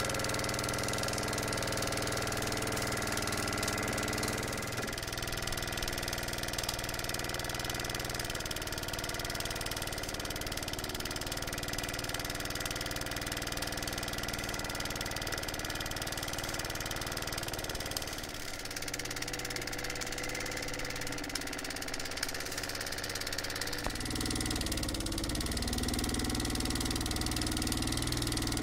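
Mamod Minor 1 toy steam engine running flat out on its own, uncontrolled: a steady whirring of the little engine and flywheel over a constant hiss of steam, with excess steam blowing off. About three-quarters of the way through the sound becomes fuller and deeper.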